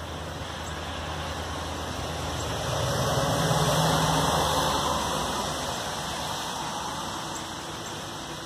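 An engine running steadily with a low hum, under a rushing noise that swells louder about three seconds in and eases off again after about five seconds.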